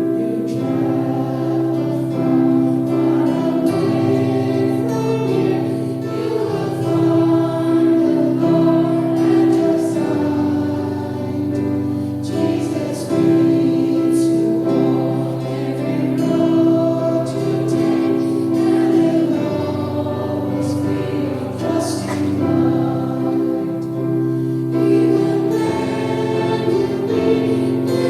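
Choir singing a slow Christian song over sustained chords that change every few seconds.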